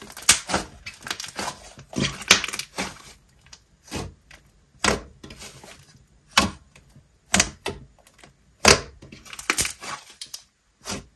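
Thick, glossy slime being pressed, folded and poked by hand, giving irregular sharp clicks and crackles.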